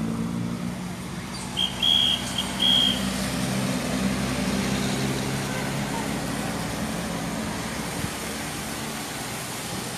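Pickup truck driving past on a wet road, engine running with tyre hiss. Three short, shrill whistle blasts sound about two seconds in, the loudest sounds.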